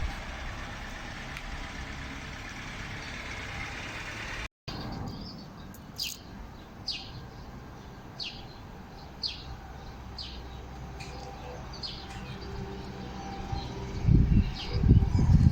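A steady noisy rumble, then after a short cut a bird calls repeatedly: short, high, falling chirps about once a second. Near the end, loud low rumbling bursts come in.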